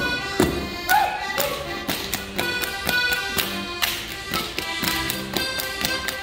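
Accordion-led traditional German folk dance music, with many sharp claps and hits from the dancers over it.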